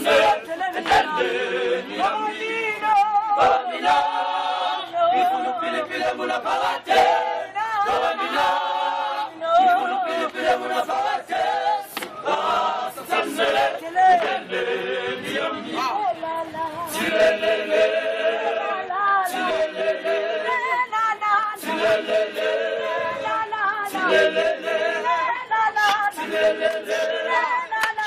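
Male a cappella choir singing in harmony, with sharp hand claps.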